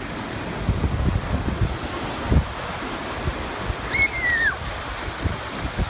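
Ocean surf breaking and washing up the beach, with wind buffeting the microphone in low rumbling gusts. About four seconds in there is one short high cry that falls in pitch.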